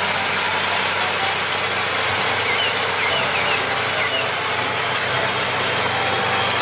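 Farm tractor engine running steadily under load while pulling a plough, a constant low hum under a heavy hiss of noise.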